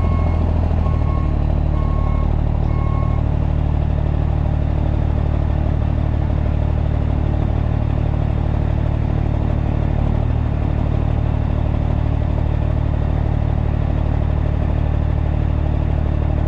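Unmuffled big-rig diesel engine running steadily at low speed while the truck backs up. A reversing alarm beeps about once a second for the first three seconds, then stops.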